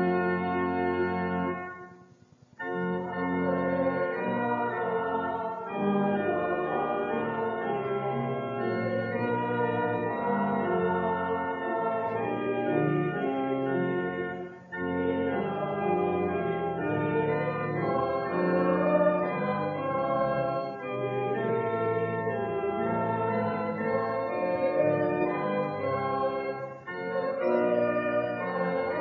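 A church organ built in 1956 accompanying a choir or congregation singing a hymn in slow held chords. It breaks off briefly about two seconds in, with shorter breaths between lines near the middle and near the end.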